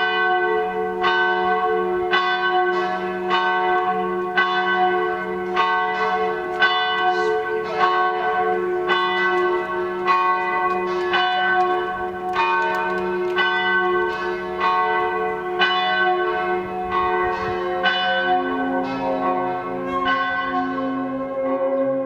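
Church bells ringing a peal, struck about twice a second, each stroke ringing on over a steady hum of overlapping tones. Near the end a lower sustained tone comes in.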